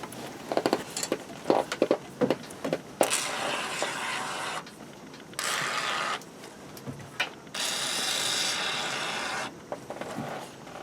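Aerosol can of spray foam hissing out in three spurts, about a second, under a second and about two seconds long, after a few seconds of scattered clicks and knocks.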